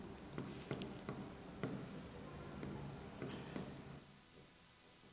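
Pen or stylus tapping and scratching on the screen of an interactive display board as words are handwritten: faint clicks and scrapes that stop about four seconds in.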